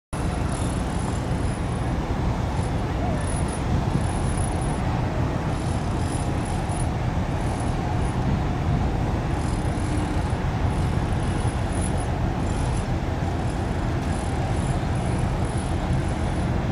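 Harbour-side ambience: a steady low rumble with a hiss over it and no distinct events, the kind made by wind and choppy water at a quay with distant traffic.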